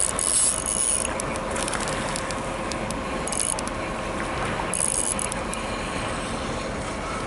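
Spinning reel being cranked as a hooked trout is played in, its mechanism clicking and whirring, with a few brief high rattles about a second in, again near the middle, and around five seconds in.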